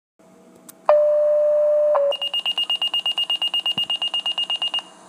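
Electronic alarm tones: a steady mid-pitched tone held for about a second, then rapid high-pitched beeping at about nine beeps a second for nearly three seconds.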